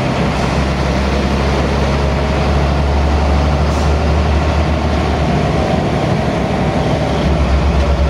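Intercity bus's diesel engine and exhaust heard from inside the cabin: a steady low growl ('ngorok'), which turns into an even throbbing pulse near the end.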